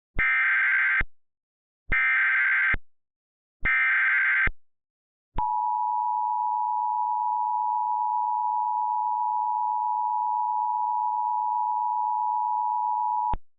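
Emergency Alert System SAME header: three short bursts of rapid digital data warble, then the EAS two-tone attention signal (853 and 960 Hz) held steady for about eight seconds before cutting off. It announces an emergency alert broadcast.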